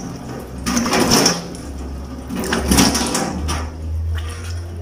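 Face washing: a series of short splashing and rubbing sounds as hands scrub and rinse the face. A low steady hum sits underneath.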